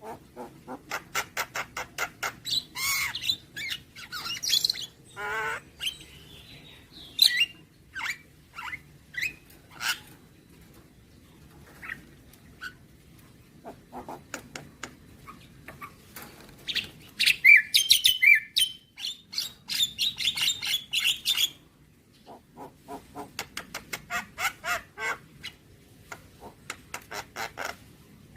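Javan myna (jalak kebo) singing a long, varied song: rapid runs of clicking notes, sliding whistles and harsh, squawking chatter, loudest a little past the middle, with a few short pauses.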